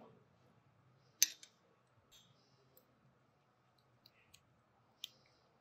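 A few light clicks and clinks of a metal spoon and wire whisk against a glass mixing bowl, with one sharper clink about a second in and fainter ticks after.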